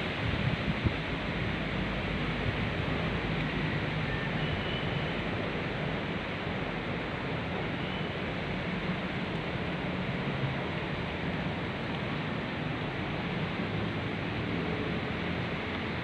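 Steady wind blowing through palm trees and garden foliage: an even, continuous rustling rush with no gusts standing out. A few faint, short high notes come through about four to eight seconds in.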